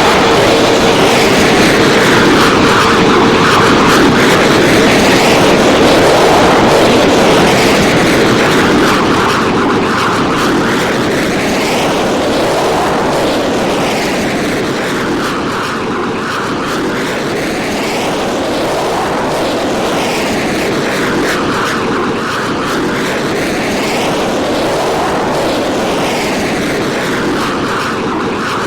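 An airplane's engines running loud and steady, with a whooshing sound that sweeps up and down every few seconds. A faint steady hum fades out in the first few seconds.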